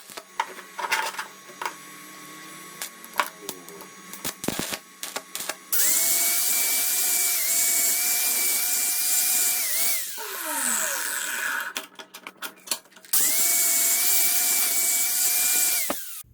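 Clicks and knocks of handling, then an electric drill runs at steady speed for about four seconds and winds down with a falling whine. After a few more clicks it runs again for about three seconds and stops suddenly.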